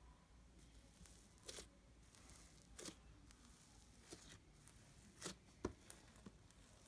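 Floam slime (slime packed with tiny foam beads) being squeezed and pulled by hand, giving faint crackling and squishing in about six short bursts, the sharpest a little before the end.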